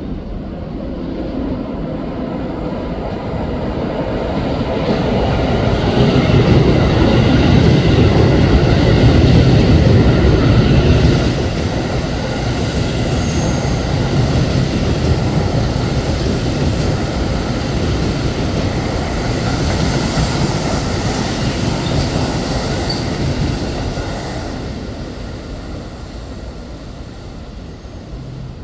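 A Keio 7000 series and 9000 series electric commuter train, coupled together, passing through a station without stopping. The running noise builds, is loudest for several seconds, holds steady, then fades away near the end.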